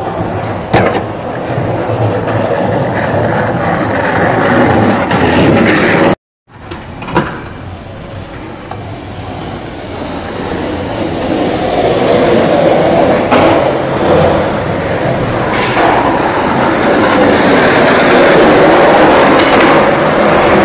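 Skateboard wheels rolling on asphalt: a continuous rumble that grows louder in the second half, with a sharp clack about a second in and another about seven seconds in, and a brief dropout about six seconds in.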